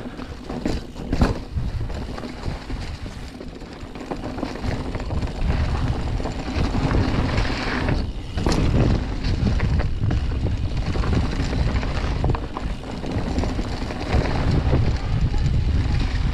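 Mountain bike rolling down a snowy trail, with wind buffeting the microphone over a low rumble and rattle from the bike. A few sharp clicks come in the first second or so.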